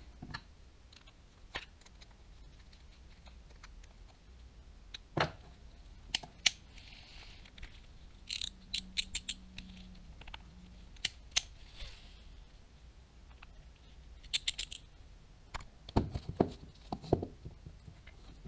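Small clicks and taps of a Daiwa Tatula 100 TWS baitcasting reel being handled on the bench. There are two short runs of rapid, high clicking, one about halfway through and one a few seconds later.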